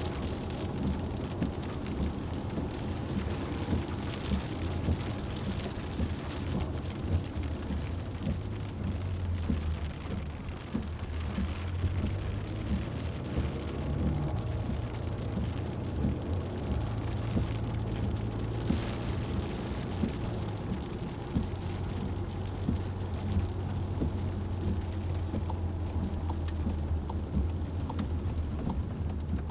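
Rain pattering in many small drops on a moving vehicle, over a steady low rumble from the road and engine.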